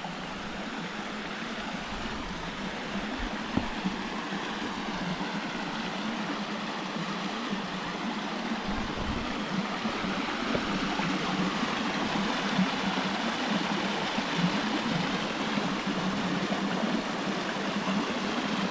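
Small creek waterfalls: a steady rush of falling water that grows gradually louder.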